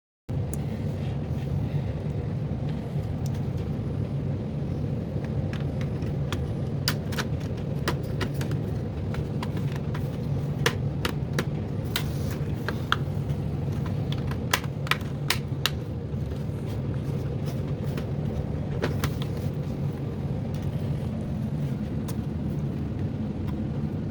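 A steady low machine hum with scattered sharp clicks and taps over it.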